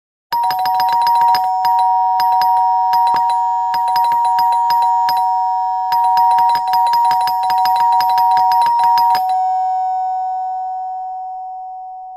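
Traditional mechanical doorbell, its hammer striking a metal bell very rapidly in several bursts with short breaks. The strikes stop about three seconds before the end and the bell rings on, fading.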